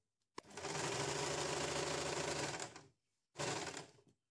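Electric domestic sewing machine stitching fabric. A click, then a steady run of about two and a half seconds, a brief stop, and a short second burst of stitching near the end.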